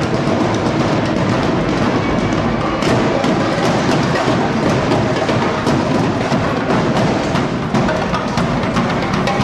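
Marching drum section playing a fast, dense cadence: a steady stream of drum hits with sharp, clicky stick strikes over low bass drum beats, without pause.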